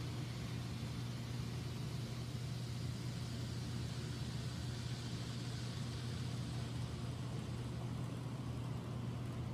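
N scale model train running on its layout track: a steady low hum with a faint whir above it that swells slightly midway.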